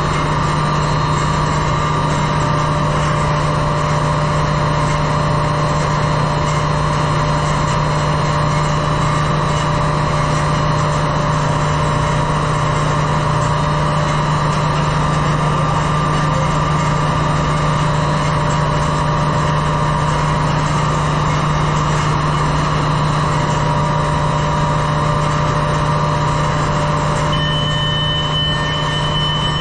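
Steady machinery drone of a ship's engine room: a constant low hum with several steady whining tones above it. A higher-pitched whine joins near the end.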